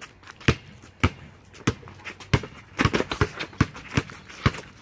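A basketball being dribbled, bouncing hard on the court about twice a second, with a quicker run of hits about three seconds in, mixed with players' footsteps.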